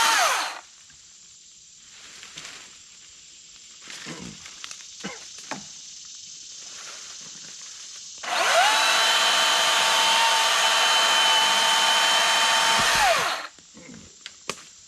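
Milwaukee M18 Fuel cordless top-handle chainsaw winding down just after the start; after a few light knocks, it spins up again, runs at a steady pitch for about five seconds and winds down.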